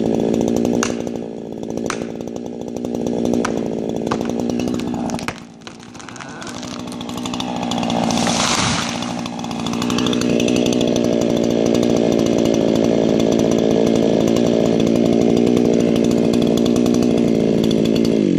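Chainsaw cutting into a large ponderosa pine trunk. The engine dips briefly partway through, then runs steadily under load until it stops at the very end.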